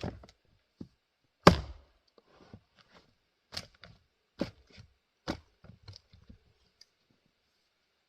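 An axe strikes and splits a grand fir round with a sharp, loud crack about a second and a half in. Several lighter wooden knocks follow over the next few seconds.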